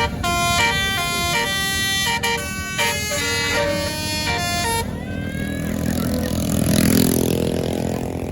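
Tour bus's Basuri 'telolet' musical air horn playing a quick tune of stepped multi-tone notes, which ends about five seconds in. Then the bus passes: its engine and air rush swell to their loudest near the seventh second and fade.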